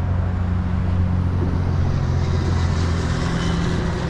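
An engine idling steadily, a low even hum with a hiss of noise over it.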